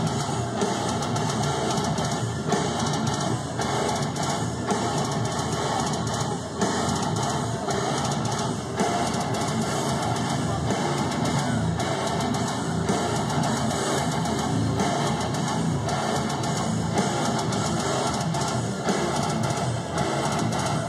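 Two electric guitars playing a heavy metal instrumental through amplifiers, continuous and without a break.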